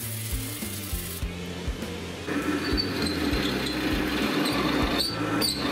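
Background music, with the crackling hiss of electric arc welding early on. From about two seconds in it gives way to a louder, steady noise of a drill press boring through the pulley's steel plate.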